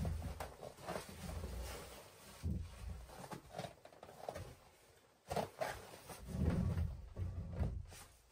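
Rubber boots stepping over sawdust and logs, with irregular knocks and thuds of a wooden plank being handled and set across the log joists.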